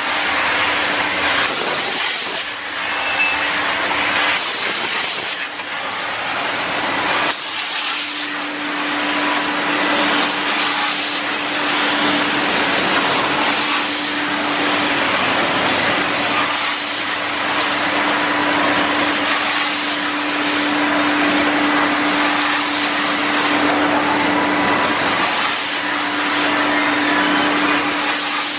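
Haas wafer baking line running: a loud, steady machine hiss with a hum, and a sharper hiss that comes back about every three seconds.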